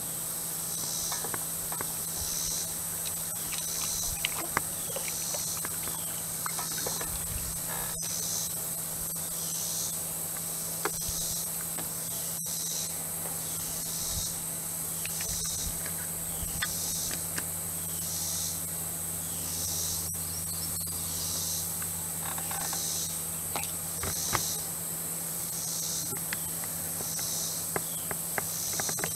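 Insects calling: a steady high-pitched drone with a pulsing chirp repeating about once a second, over a low steady hum and scattered light clicks.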